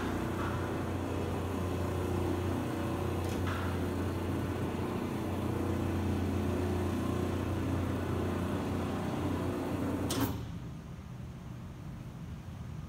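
Ransome 50P-A welding positioner's electric drive and gearing running with a steady low hum as the table tilts back toward level, then cutting off with a click about ten seconds in.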